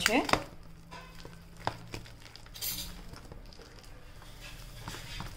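Urad dal batter being beaten by hand in a steel bowl to work air into it: the hand and thick batter scraping and slapping against the metal, with a few sharp clinks.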